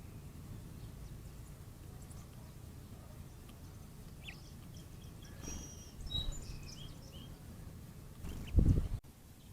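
House finches giving short, high chirps, a cluster of them from about four to seven seconds in, over a steady low outdoor rumble. Near the end a loud low thump, then the sound drops off abruptly.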